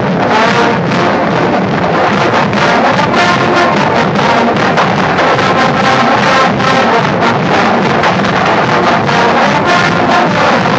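College marching band playing loudly: brass lines over a steady drumbeat.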